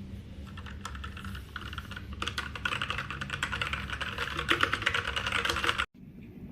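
Machenike K500 mechanical keyboard being typed on: a few scattered key presses, then fast continuous typing from about two seconds in that cuts off suddenly near the end.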